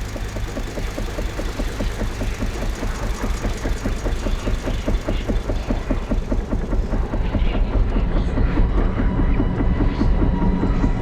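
Petrol lawn mower engine running with a rapid, even rhythmic pulse, growing louder.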